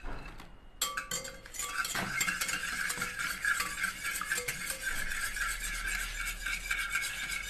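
Wire whisk beating a thin egg, oil and milk batter in a bowl: rapid, steady clinking strokes of the wires against the bowl, starting about a second in.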